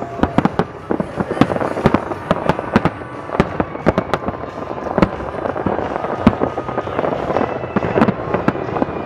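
Large fireworks display: aerial shells bursting in rapid, irregular bangs, several a second, over a continuous dense din of crackling and reports.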